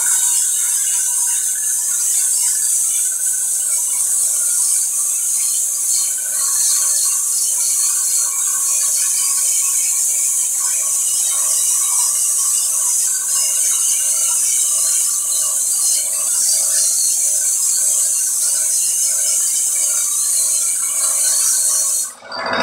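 Sandblasting gun blasting abrasive at a glass panel to etch it: a loud, steady hiss that breaks off for a moment near the end.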